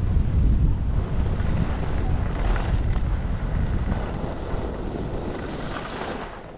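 Wind buffeting a helmet-mounted camera's microphone during a ski run, with the hiss of skis sliding on groomed snow. The rumble fades toward the end as the skier slows down.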